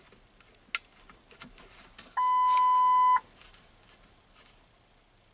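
A few light plastic clicks from the trailer brake controller's buttons as the gain is stepped down, then a single steady electronic beep about a second long from the truck's dash, starting about two seconds in.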